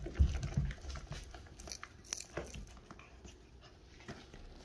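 A cat scrambling on a carpeted cat tree: several dull thumps in the first second, then scattered light scratches and clicks of claws on the carpet.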